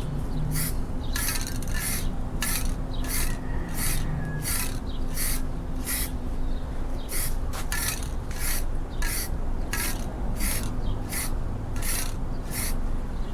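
Rhythmic rasping strokes of paint being worked onto the bass boat's surface, back and forth at about two strokes a second, with a faint steady hum behind.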